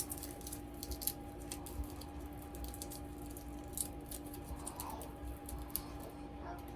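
Scattered light clicks and taps of kitchen food-prep handling, over a faint steady hum.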